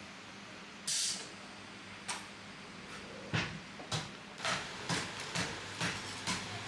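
Coconut being chopped with a cleaver: a short hiss about a second in, then a run of sharp chops, about two a second, in the second half.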